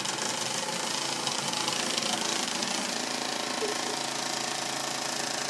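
Kossel delta 3D printer's Z-tower stepper motor straining to drive its carriage upward, with the other towers vibrating, making a steady mechanical buzz. During G29 bed probing the Z motor climbs instead of going down, a fault that reversing its wires only sends the other way.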